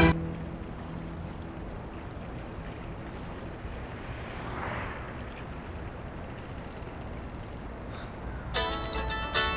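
Low, steady rumble of street traffic, with a soft swell about halfway through.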